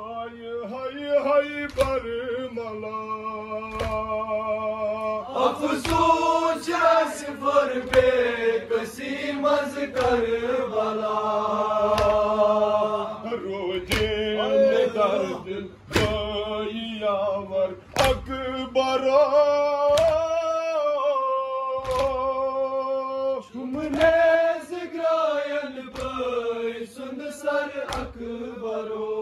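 A group of men chanting a Kashmiri noha, a mourning lament, in unison. Sharp chest-beats (matam) land in time with it about every two seconds.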